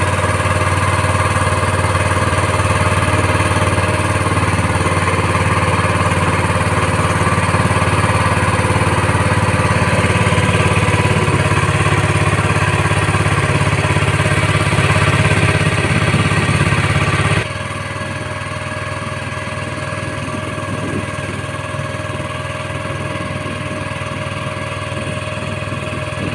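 Motor of a wooden river boat running steadily while the boat is underway, a constant low engine hum. The level drops suddenly about two-thirds of the way through, then carries on steady.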